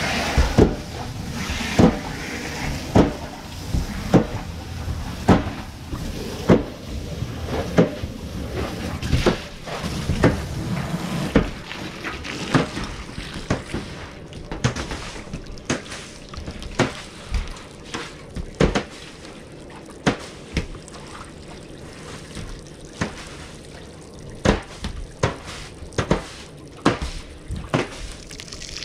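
Garden-hose water spraying and running in a metal roof gutter, punctuated by sharp knocks about once a second in the first half, then at irregular intervals. The hiss of the water is weaker after the first ten seconds or so.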